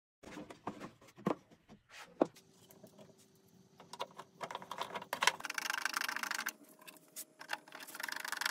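Scattered clicks and knocks of plastic parts and tools being handled, then, from about five seconds in, a hand screwdriver driving screws into the extractor's plastic housing: a dense, continuous scratchy clicking.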